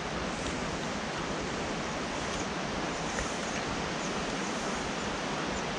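River water rushing steadily, an even, unbroken roar of flowing water.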